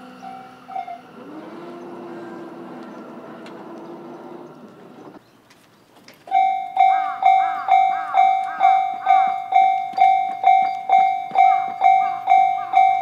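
Japanese railway level-crossing warning bell: an electronic clanging ding repeated about twice a second, starting a little after the middle after a short near-quiet gap. Before that, another crossing bell sounds and stops about a second in, and a low steady hum follows for a few seconds.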